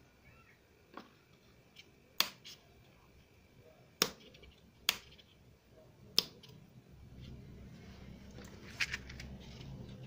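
Small rocker switch on a battery-and-buzzer circuit clicking sharply as it is flipped, about six separate clicks a second or more apart.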